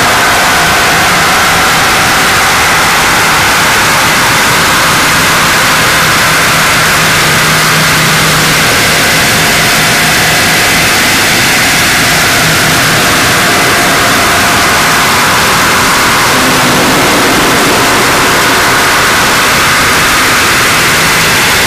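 Harsh noise music: a loud, unbroken wall of distorted electronic noise spread over the whole range, with faint held tones shifting within it.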